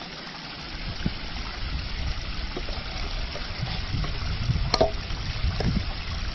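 Steady outdoor hiss with a fluctuating low rumble. A homemade PVC-pipe water-sampling pole is handled, giving a few light knocks about one, two and a half, almost five and almost six seconds in.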